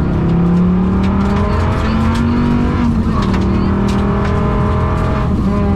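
Rally car engine heard from inside the cabin, pulling hard under full throttle. Its pitch climbs and drops abruptly at quick dog-box gear changes, about halfway through and again near the end, with sharp clicks and knocks throughout. The engine is running with a bad misfire.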